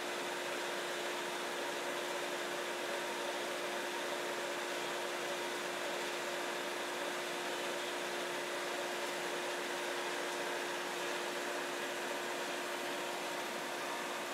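Epilog laser cutter running as it cuts a cardboard tube on its rotary attachment: a steady airy hiss of its fans with a constant low hum.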